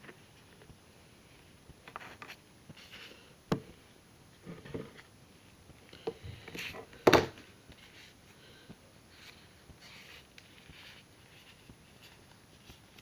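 Scattered handling noises close to the microphone as a plastic hair-dye bottle is handled: soft rustles and clicks, with a sharp click about three and a half seconds in and the loudest knock about seven seconds in.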